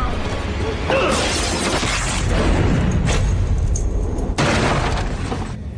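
Action-film fight-scene soundtrack: a heavy low rumbling music score with sudden hits and crashes about one, three and four and a half seconds in, and a few vocal grunts near the start. It fades away just before the end.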